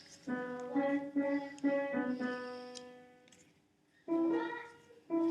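Piano background music: a run of single notes struck about every half second that fades out, then fresh sustained notes about four seconds in and again near the end.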